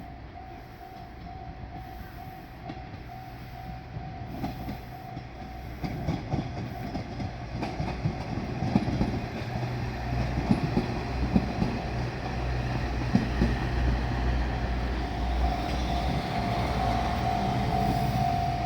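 Japanese level-crossing warning signal ringing while a diesel train approaches and runs over the crossing: the engine's low rumble and the clacking of wheels over rail joints grow steadily louder.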